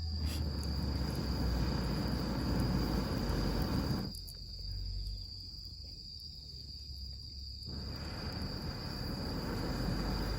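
Crickets chirring in one steady high-pitched trill over outdoor background noise and a low rumble. The background noise falls away for a few seconds in the middle while the insect trill carries on.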